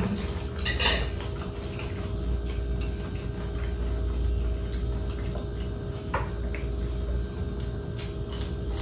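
Occasional light clicks of cutlery and plates during a meal, at uneven gaps and strongest about a second in, over a steady low hum.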